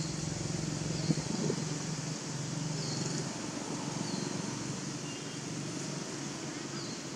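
Steady low hum, like a motor running in the distance, over a high hiss, with a few faint short chirps and a single sharp click about a second in.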